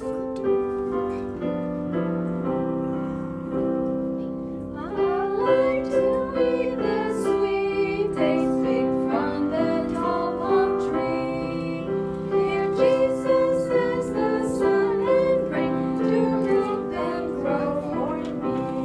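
Keyboard accompaniment playing a children's Sabbath school song, with a woman's voice coming in singing about five seconds in.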